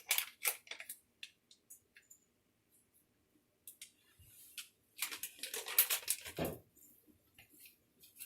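Kitchen handling sounds: scattered light clicks and knocks of utensils and containers, then a longer stretch of rustling and scraping a little past the middle.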